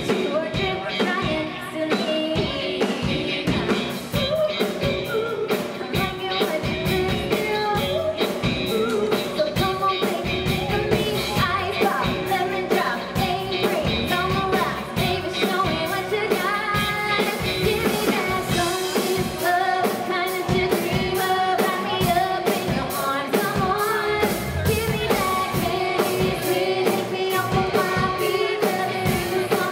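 Live pop-rock band playing: a woman sings lead into a handheld microphone over electric guitar, bass guitar and a drum kit, with a man singing along on a second microphone.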